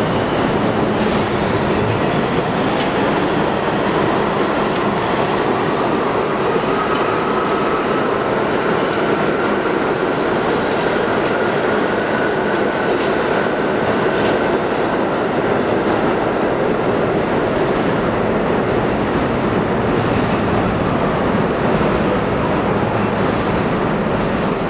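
Budd R32 subway train running along the track through an underground station. The steel wheels rumble and clatter steadily on the rails, with faint high wheel squeals.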